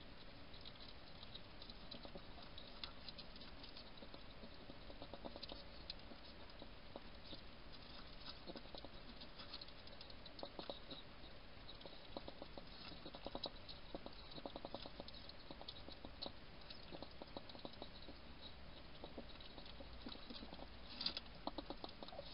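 European hedgehog feeding at a dish: runs of small, quick, rhythmic mouth clicks and smacks, coming in bursts, with the loudest cluster near the end. A faint steady electronic hum sits underneath.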